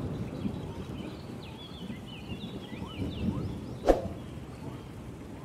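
Small birds chirping in quick short calls over a low rumbling background, with one sharp strike about four seconds in.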